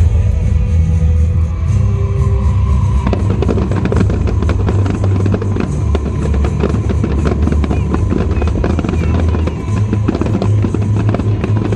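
Fireworks going off in a dense barrage, with rapid crackling from about three seconds in, over loud music with a heavy bass.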